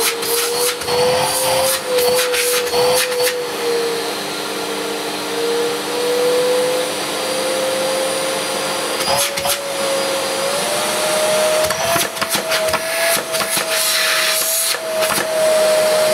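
Hoover EcoG bagged cylinder vacuum cleaner, an 1100-watt model, running with a steady motor whine. In the second half the whine steps up in pitch, twice, as the power control is turned up toward maximum. A few short clicks and knocks sound along the way.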